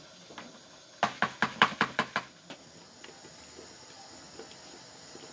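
A quick run of about eight sharp knocks lasting just over a second, then a few faint clicks.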